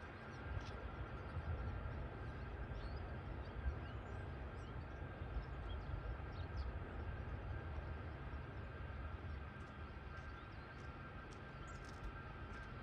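Steady, faint whine of a Boeing C-17 Globemaster III's turbofan engines at a distance, over an uneven low rumble, with faint bird chirps.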